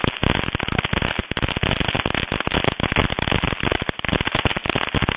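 Fireworks crackling in a rapid, continuous run of small sharp pops, many each second.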